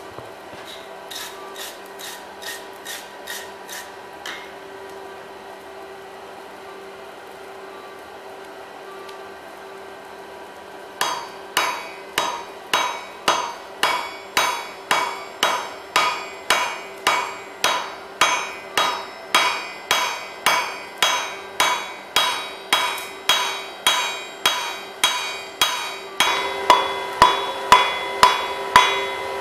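Hand hammer forging a hot bar on an anvil to draw a square taper. A few light quick taps come first, then after a pause a steady run of blows about one and a half a second, each with a short metallic ring. Near the end the blows get louder and ring more, over a faint steady hum.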